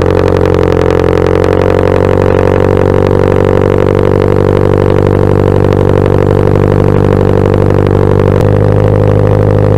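Toyota 86's flat-four engine with unequal-length catted headers and a Tomei catback, idling high just after a cold start, heard at the tailpipe: a steady, droning exhaust note. About eight seconds in the note steps down to a deeper tone.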